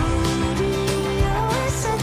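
Background music: a pop song with singing over a steady beat.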